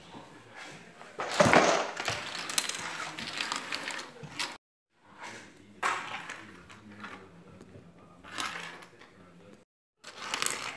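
Black dominoes clattering and clicking against each other and the wooden floor as they are knocked over and pushed together by hand, with a dense burst of clatter about a second in.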